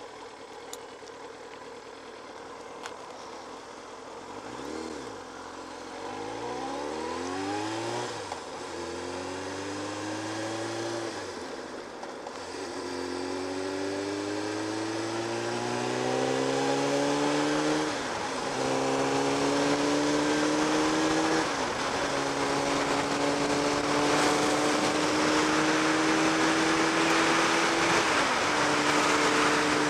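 Kawasaki ZX-7R's inline-four engine accelerating up through the gears. The revs climb, then drop back at each upshift, about six times. A rush of wind noise builds as the speed rises.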